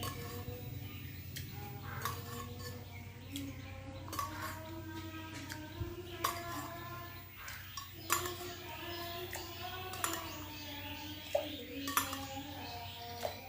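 A spoon clinking against a glass and vessel as water is measured out spoonful by spoonful, about one clink a second.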